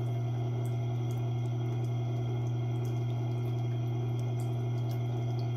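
Tormek T8 sharpener's electric motor running steadily with its leather strop wheel turning: a steady low hum with no change in pitch.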